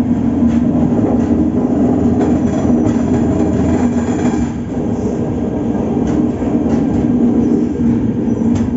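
Express train's coaches rolling along a station platform, heard from an open coach doorway: a steady rumble of wheels on rail with a low hum and a few faint clicks.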